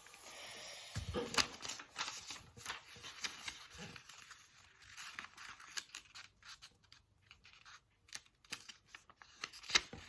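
A sheet of notebook paper being folded and creased by hand: irregular rustles and crinkles with small taps, and one sharper click near the end.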